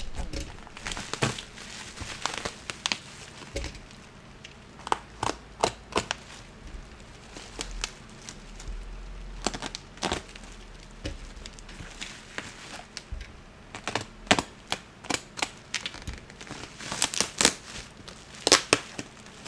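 Plastic packaging being handled and opened: irregular crinkling, crackling and tearing with sharp snaps, busiest near the end.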